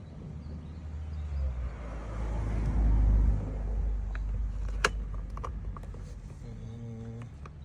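A motor vehicle passing, its rumble swelling to a peak about three seconds in and then fading, with a few sharp clicks of small plastic lock parts being handled a little after.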